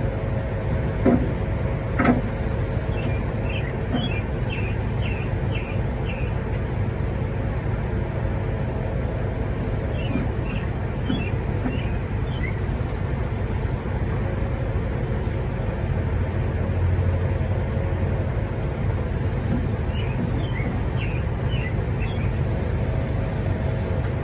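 Steady low engine-like rumble with a droning hum throughout, and two short knocks near the start. A bird chirps in quick phrases three times over it.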